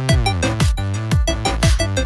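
Electronic pop backing music: stacked synth chords over a steady, heavy drum beat, with no vocals.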